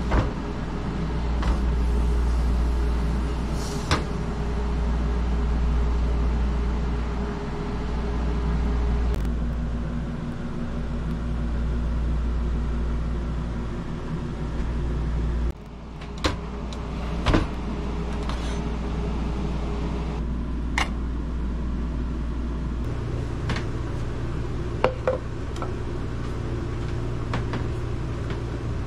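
Steady mechanical hum of a motor or fan, with a few sharp clicks and clinks; the hum changes abruptly a few times.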